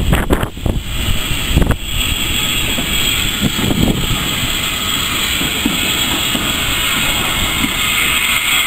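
Railway goods wagons rolling slowly past on the track: a steady rumble and hiss of wheels on rail. A few sharp knocks come in the first two seconds.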